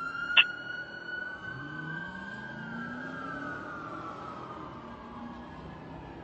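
Fire apparatus sirens in a long wail that holds for a few seconds, then falls slowly in pitch, with a second tone splitting off slightly below it. A sharp short blip sounds about half a second in, and a truck engine climbs in pitch underneath.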